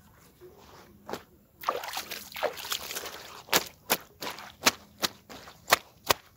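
Clothes being washed by hand: a stretch of wet rubbing and sloshing, then a steady run of sharp wet slaps about two or three a second.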